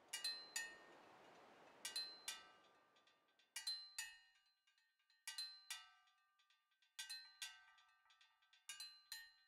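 Sparse, quiet music: high chime-like notes struck in pairs, a new pair about every second and a half, each ringing out and fading. A faint wash dies away over the first few seconds.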